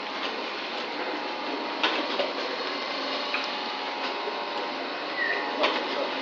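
Automatic flour-packing machine (vertical form-fill-seal bagger) running steadily, with a sharp click about two seconds in and again near the end.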